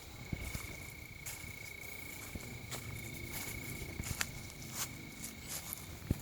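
A cricket trilling steadily at one high pitch through the night, with footsteps on grass and a few sharp clicks from handling.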